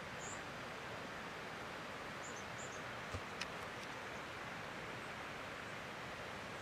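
Outdoor bush ambience: a steady soft hiss of air, with a few faint, short, high bird chirps. Two light clicks come close together a little past three seconds in.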